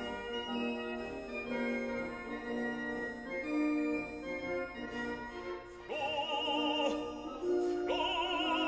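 Classical music: sustained held chords, then an operatic voice singing long notes with a wide vibrato starting about six seconds in.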